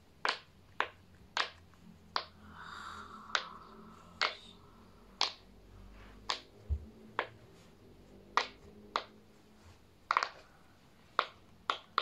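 Silicone pop-it fidget toy being pressed bubble by bubble: about fifteen sharp separate pops, one every half second to a second.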